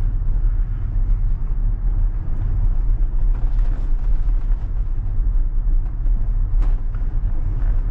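Tyre and road noise inside a Tesla's cabin as it rolls along a dirt road: a steady low rumble of tyres on packed dirt, with no engine sound. One short click from the road about six and a half seconds in.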